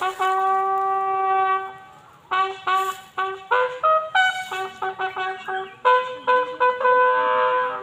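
Bugle call played during the lowering of the flags at a border retreat ceremony. It opens on one long held note, goes into a quick run of short notes, then ends on longer held notes.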